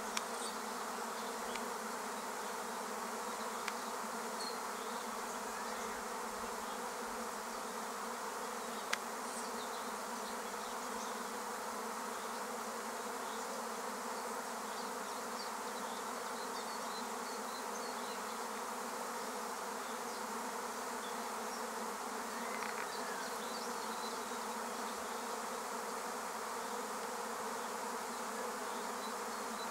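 A honeybee swarm issuing from a hive: the steady, dense buzzing of a great many bees leaving the colony at once.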